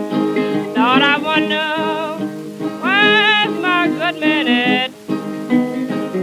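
Country blues played from a 1932 78 rpm record: acoustic guitar playing throughout, with a woman's voice singing long wavering notes from about a second in until about five seconds in. The sound is dull, with no highs, as on an old shellac disc.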